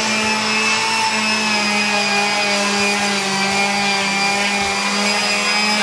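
Handheld electric power tool running steadily against the steel frame of a weight bench, its motor holding one steady pitch.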